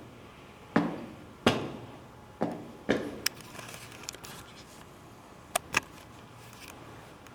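A series of sharp knocks or clacks, four loud ones in the first three seconds, then softer clicking and two quick sharp clicks a little later.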